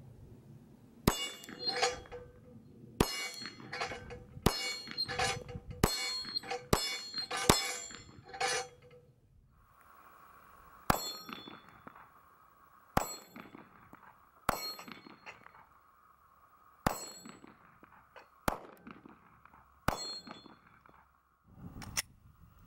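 Glock 43 9mm pistol firing at steel targets, the hit plates clanging and ringing after the shots. About ten shots in quick succession in the first half, then single shots roughly every one and a half to two seconds.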